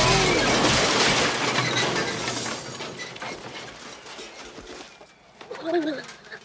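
A wheeled cart crashing into a wooden roadside stall: a loud smash of splintering and breaking, then scattered clattering of falling debris that dies away over about four seconds. A brief pitched sound with a rising-and-falling pitch comes near the end.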